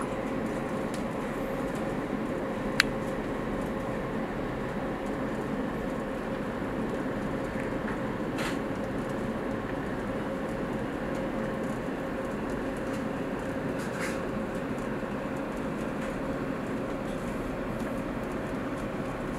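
Steady engine drone with a constant hum, as heard inside the cabin of a moving vessel. A single sharp click comes about three seconds in.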